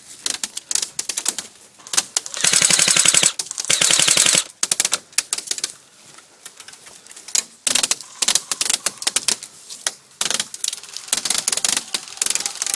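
Airsoft rifles firing: a full-auto burst of rapid, evenly spaced clicking shots lasting about two seconds, starting a little over two seconds in, with scattered single shots and short bursts before and after.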